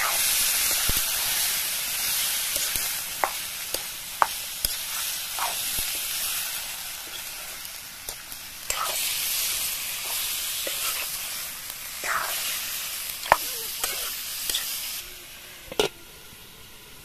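Chicken pieces sizzling in oil in a metal kadai, stirred with a metal ladle that scrapes and knocks against the pan now and then. Near the end the sizzle drops away and a metal lid clanks onto the pan.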